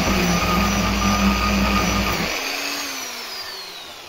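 An angle grinder with a small-diameter carving disc cuts into the inside of a linden-wood bowl. About two seconds in it is switched off, and it winds down with a falling whine that fades away.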